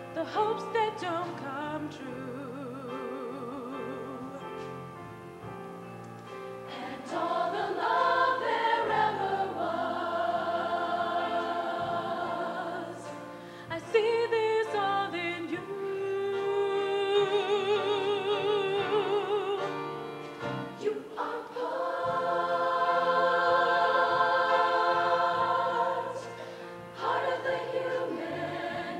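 Girls' show choir singing: a female soloist on a handheld microphone with the choir holding sustained notes with vibrato, swelling louder and fading back several times.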